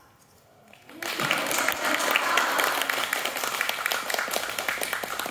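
Audience applauding, starting about a second in: many hands clapping at once.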